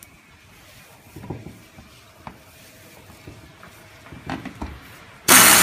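A few light knocks and handling noises from the chair parts, then a handheld power drill starts up loudly and abruptly just before the end, running steadily.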